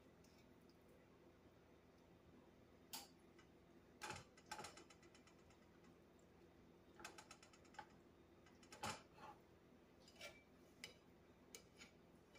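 Metal kitchen tongs clicking and scraping against a plate and a metal muffin tin as shredded chicken is moved into the cups: scattered light clicks, some in quick little clusters, over a faint steady hum.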